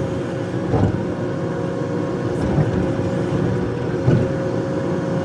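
Excavator engine running steadily under load, with a thin, even hydraulic whine over it and two brief knocks, about a second in and near the end.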